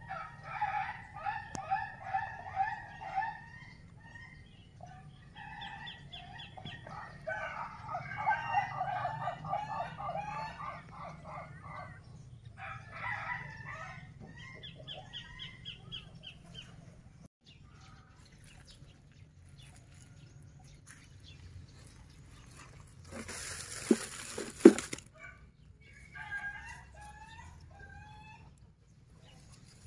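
Birds calling nearby: several runs of rapid, pulsed calls repeated through the first half and again near the end. About 24 seconds in, a short burst of rustling noise with two sharp knocks is the loudest sound.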